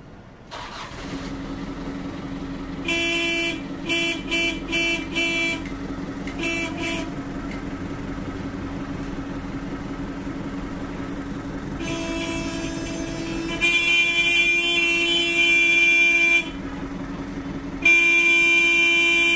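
Vehicle horn honking: a string of short toots about three seconds in, then two long blasts in the second half, over a steady hum.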